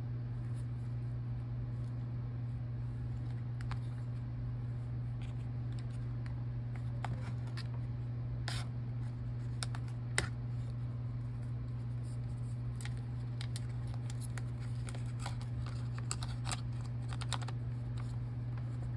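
Scattered light clicks and scrapes of a MacBook Air trackpad and its flex cable being handled against the laptop's metal top case, the sharpest click about ten seconds in, over a steady low hum.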